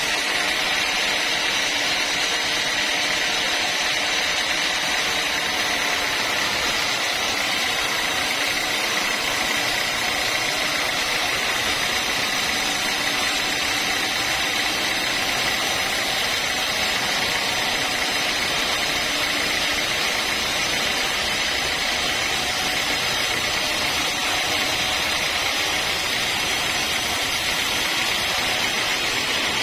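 Sawmill saw running steadily, a constant, even noise with no change in level, its energy strongest high up.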